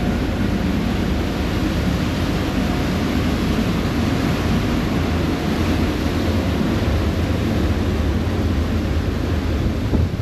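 A passenger ferry under way: a steady low engine rumble mixed with the wash of water along the hull. Wind begins buffeting the microphone right at the end.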